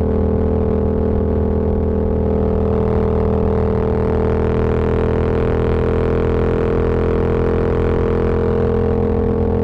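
Yamaha MT-07's parallel-twin engine idling with a steady, unchanging drone.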